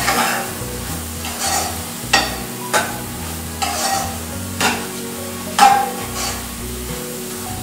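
Spatula stirring and scraping chopped tomatoes, onions and spice powders as they fry in a nonstick pan. It makes about ten irregular strokes, roughly one a second, the loudest about five and a half seconds in.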